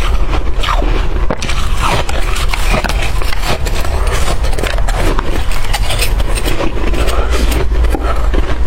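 Shaved ice and freezer frost crunching, close-miked, while being bitten and chewed: dense, irregular crackling crunches.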